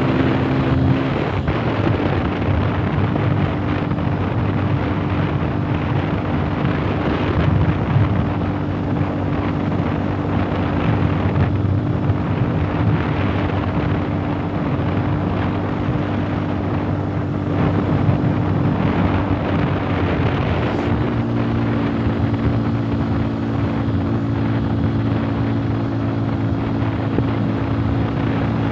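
Motorcycle engine running steadily under way, with wind rushing over the microphone. The engine note shifts about a second in and again about 21 seconds in.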